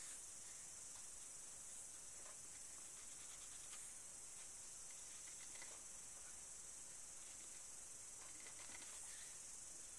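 Faint scratching of a white crayon making short strokes on black paper, a few soft scratches scattered through, over a steady hiss.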